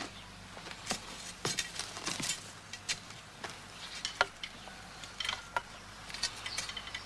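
Sparse light clicks and small metallic clinks from a red-and-white surveyor's ranging pole being handled in its metal tripod stand.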